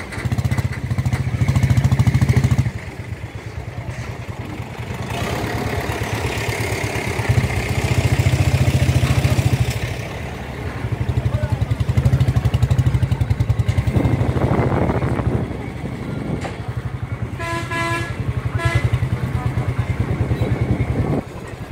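Motorcycle engine running, growing louder and easing off again every few seconds as the throttle opens and closes. A vehicle horn honks twice about three-quarters of the way through.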